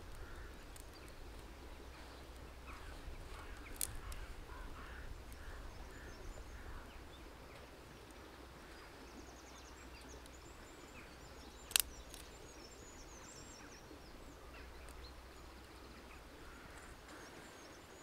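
Quiet outdoor ambience with birds calling in the background and two sharp snaps of dry twigs, a small one about four seconds in and a louder one near twelve seconds, as sticks are fed into a small wood-burning camp stove.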